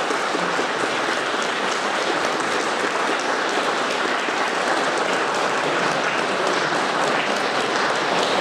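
Audience applauding steadily: many hands clapping at once, a dense, even patter.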